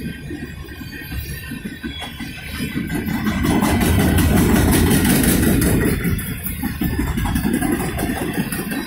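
Loaded freight cars of a CSX manifest train rolling past: a steady rumble and clatter of steel wheels on the rails. It swells louder for a couple of seconds in the middle.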